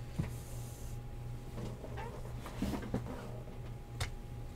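Faint knocks and scrapes of sealed cardboard trading-card boxes being moved and restacked on a desk, a few separate handling sounds over a steady low hum.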